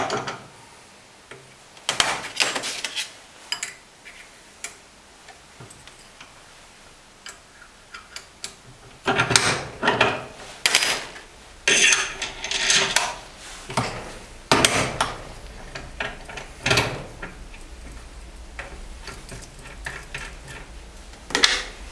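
Steel parts of a common rail injector clamping device clicking and clanking as the fixture is adjusted by hand: scattered sharp metal clicks, then a run of louder knocks from about the middle, easing off near the end.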